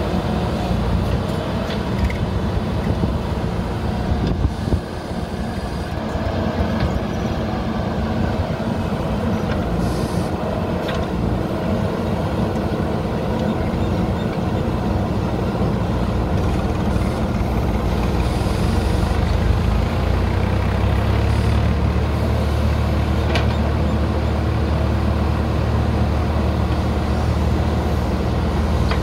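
JCB 3DX backhoe loader's diesel engine running steadily under load while the backhoe digs, with a few short knocks. Its low note grows steadier and stronger about two-thirds of the way through.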